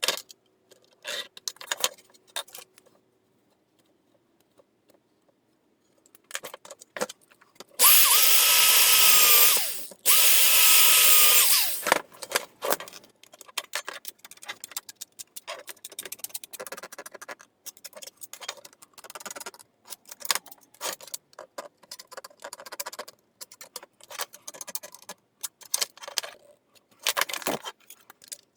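A handheld power tool, likely a drill, run in two bursts of about two seconds each while working the sheet-metal control panel, a steady whine under loud grinding noise. Light clicks, taps and scrapes of metal being handled surround the bursts.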